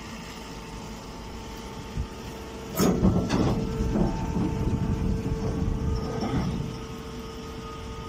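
Hydraulic straw baler's motor and pump humming steadily with a constant tone. About three seconds in a loud stretch of rustling and knocking starts and lasts about three and a half seconds, as a compressed straw bale is worked into a woven bag at the baler's outlet.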